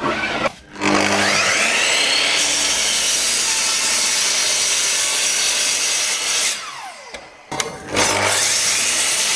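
Bosch sliding mitre saw starting with a rising whine and cutting through an oak glued-laminated panel, then winding down with a falling whine about six and a half seconds in. About a second later the saw starts again for a second cut through the panel.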